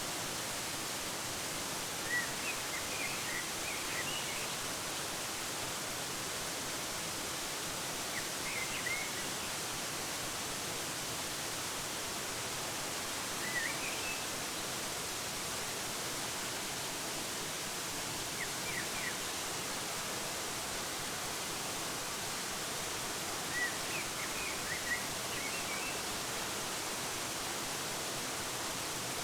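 Steady rush of a waterfall, with short clusters of bird chirps every five seconds or so.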